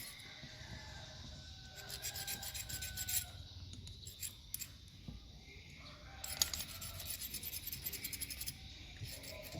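Quick rasping strokes of hand work on a starter motor part, in two spells: one about two seconds in and a longer one from about six seconds in.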